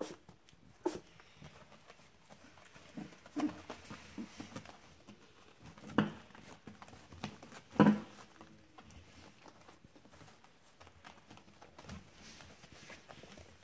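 Four-week-old puppies moving about on a floor covering: light, scattered pattering and scuffing of small paws, broken by a few short, louder sounds, the loudest about six and eight seconds in.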